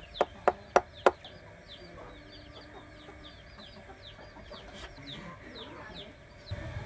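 Large knife chopping into a green branch on a wooden log: four sharp knocks in the first second or so. After that, birds cheep steadily with quick, high, falling notes, and a low rumble comes in near the end.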